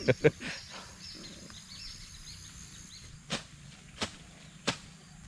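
Rural field ambience: a steady high insect drone with a few faint bird chirps. In the second half come four sharp taps, about two-thirds of a second apart.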